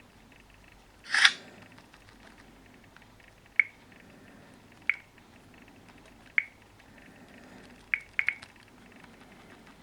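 A short rustle about a second in, then sharp clicks, single ones about every second and a half and a quick pair near the end, each with a brief high ring. No alarm tone is sounding.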